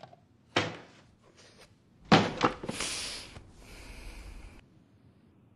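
A rolled silk scroll being handled and unrolled: one sharp knock about half a second in, two loud clacks around two seconds in, then a rustling swish of the silk opening for about two seconds.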